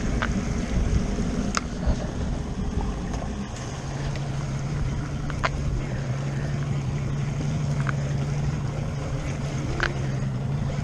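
Boat engine running low at trolling speed, its steady hum dropping to a lower pitch about three and a half seconds in, under wind and water noise, with a few sharp clicks.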